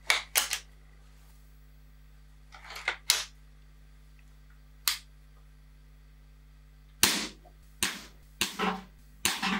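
Weihrauch HW99 spring-piston air rifle in .20 calibre being fired several times: sharp short cracks a few seconds apart, coming closer together in the last few seconds.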